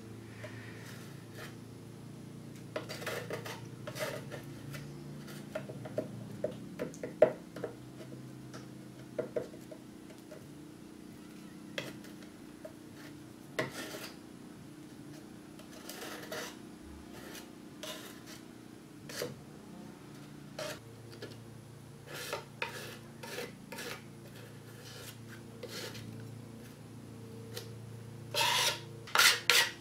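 Metal putty knife scraping and clicking as filler is scooped from a small metal cup and smeared into cracks in a wooden cabinet: scattered short scrapes and taps, with a louder run of scraping near the end.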